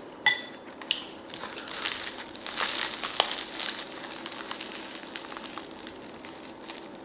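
A metal spoon clinks once against a glass bowl with a short ring, then the crisp crust of a Vietnamese baguette crackles and crunches as it is squeezed and torn apart by hand.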